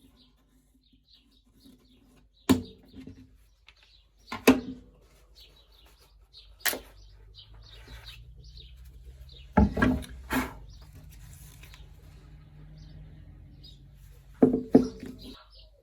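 A few sharp knocks and clatters of hard objects being handled and set down, spaced several seconds apart, with a cluster of them near the end. Faint bird chirps sound repeatedly throughout.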